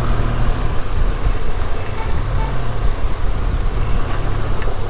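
Benelli TRK 502's parallel-twin engine running steadily under way, with a constant rush of wind noise over the microphone.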